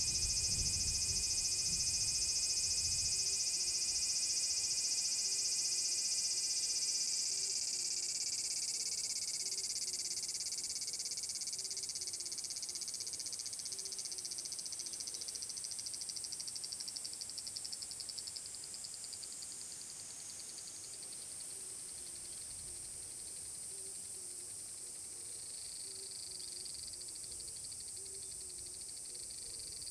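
Large brown cicada (aburazemi) song: a loud, sizzling high-pitched buzz that fades away over the middle of the stretch, with another cicada starting up near the end. A faint low call repeats steadily underneath.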